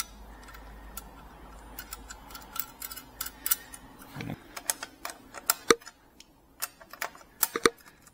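Small socket ratchet clicking in short irregular runs while the bolt of a motorcycle exhaust clamp is tightened.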